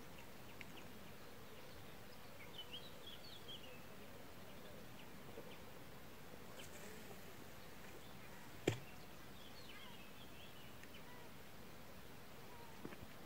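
Quiet lakeside ambience: faint steady hiss with a few faint bird chirps about three seconds in and again about ten seconds in. A single sharp click, the loudest sound, comes about nine seconds in.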